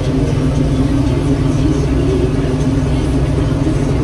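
Claas Dominator Mega 208 combine harvester running steadily under load while cutting grain, its engine and threshing machinery heard as a constant loud drone from inside the cab.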